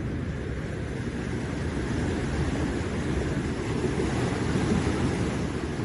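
Steady rush of sea surf on a rocky shore mixed with wind buffeting the microphone, a little louder from about two seconds in.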